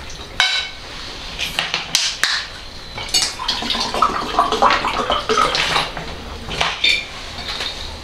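Dishes and cutlery clinking and knocking on a table during a meal, with a plastic water bottle being handled, in short irregular knocks and clatter.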